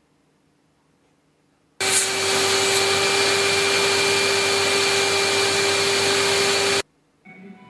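Vacuum cleaner switched on about two seconds in, running loud and steady with a constant whine, then cut off abruptly about a second before the end, drawing the air out of a large plastic bag.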